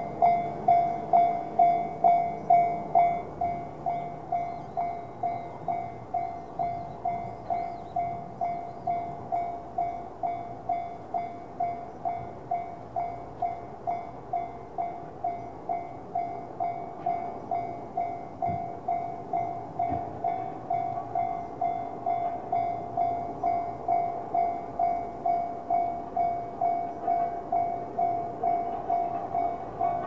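Japanese railway level-crossing electronic alarm in the JR standard tone, dinging steadily at about two strikes a second to warn of an approaching train. About three seconds in it drops to a lower volume as the barriers come down.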